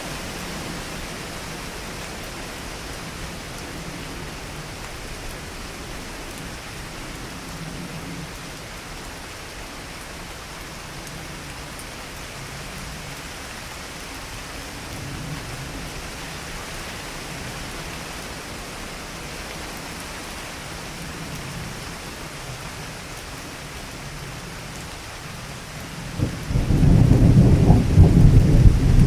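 Steady heavy rain hissing, then about 26 seconds in a sudden loud clap of thunder that breaks in and rumbles on deep and low.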